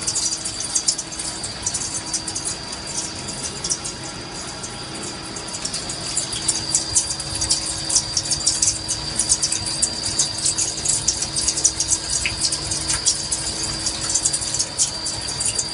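CNC lathe taking a heavy 6 mm roughing cut on a 4140 steel bar, running under load with a steady high whine, the wash of coolant and a dense crackle of breaking chips that thickens partway through. The machine runs smoothly, with no knock or chatter.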